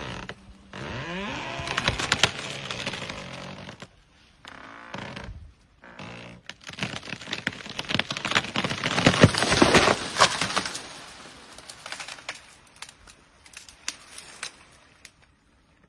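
Dead tree cracking and splintering as it is pushed over, with a dense run of sharp snaps from branches and trunk breaking about seven to eleven seconds in, loudest near ten seconds. The snaps then thin out to scattered cracks.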